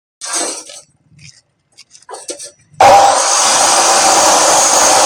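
A few short scrapes and knocks, then about three seconds in a power tool starts abruptly and runs with a loud, steady grinding noise.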